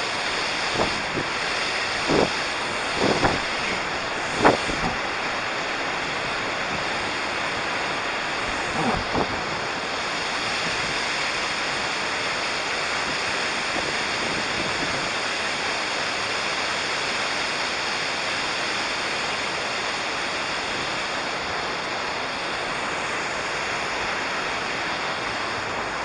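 Steady rush of a waterfall, with a few brief knocks in the first ten seconds.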